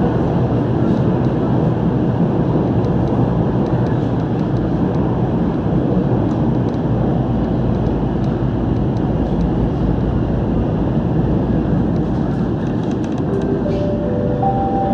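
C951 driverless metro train running through a tunnel with a steady loud rumble of wheels on rail. Near the end, as it enters the station, a few short steady whining tones come in.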